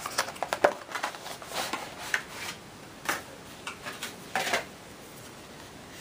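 Scattered clicks and scuffs from a Samsung 750 EVO SSD being taken out of its cardboard box and plastic packaging. The loudest cluster comes in the first second, with a few more over the next few seconds.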